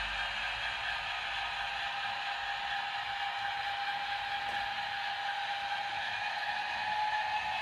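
Piko BR 232 model diesel locomotive's sound decoder playing a steady diesel engine run through its small onboard speaker, mixed with the tank wagons' wheels rolling over the model track.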